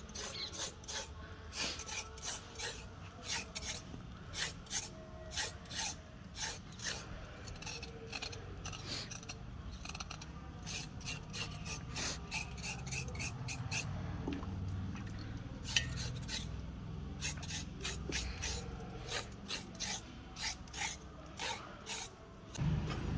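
Raw carrot rasped against a metal blade in quick repeated strokes, about two a second, with a couple of short breaks.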